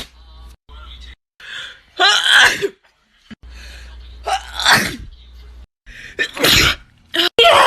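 Several sneezes in quick succession, about four, each a sharp burst of breath that slides down in pitch. They are sneezes set off by tickling the inside of the nose with a cotton swab.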